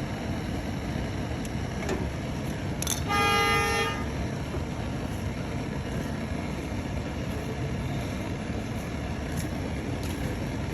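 A vehicle horn honks once for about a second, about three seconds in, over a steady background of traffic noise.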